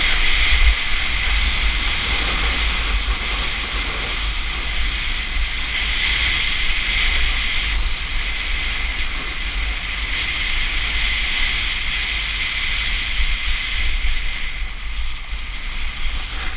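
Wind buffeting a helmet or body-mounted action camera's microphone at speed, with the steady hiss of a snowboard sliding and carving over packed snow, easing a little near the end as the board slows.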